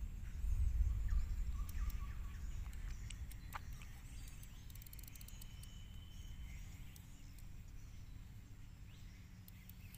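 Outdoor ambience: a low rumble of wind on the microphone, strongest in the first couple of seconds, with faint bird chirps and a thin insect trill.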